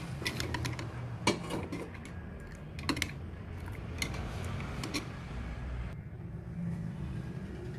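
Metal spoon stirring coffee in a glass mug, clinking against the glass in light, irregular taps, over a low steady hum.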